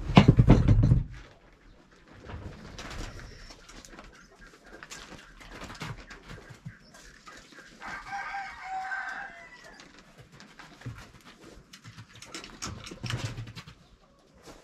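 Poultry calling, with one clear pitched call about eight seconds in, over scattered rustling and knocks; a loud bump and rustle in the first second is the loudest sound.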